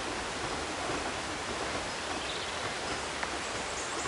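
Steady rushing of a stream or waterfall tumbling through a rocky wooded ravine.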